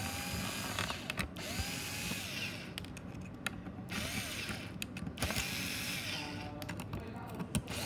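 Small screws being unscrewed from a DJI Mavic Air 2 drone's shell with a hand precision screwdriver: four stretches of scraping and squeaking as the screws turn, with sharp clicks between them as the driver tip is reset.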